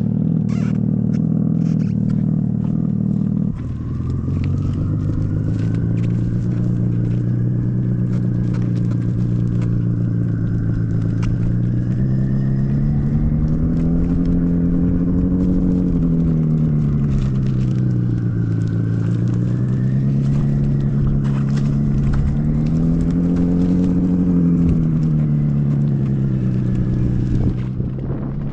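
Simulated 1000cc motorcycle engine sound from the EUC World app's acoustic vehicle alerting system, played through a KingSong 16X electric unicycle's speaker while riding. A steady engine note runs for about the first three and a half seconds. It then changes to a new note whose pitch rises and falls several times, following the wheel's speed.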